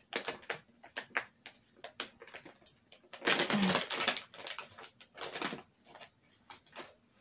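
Plastic bag of mini M&M's crinkling as it is pulled and torn open by hand: a run of sharp crackles, with louder tearing bursts a little over three seconds in and again around five seconds.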